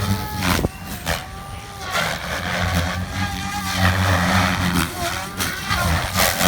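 Electric RC helicopter (Goblin 570 with an Xnova Lightning brushless motor) in flight: the motor and rotor whine glides up and down in pitch as it manoeuvres, with repeated whooshes from the rotor blades.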